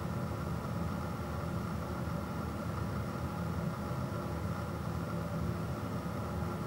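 Steady low background rumble and hum with no distinct events, unchanging throughout.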